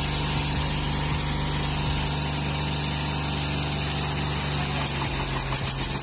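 Tractor diesel engine running steadily at low revs, an even hum with no change in pace.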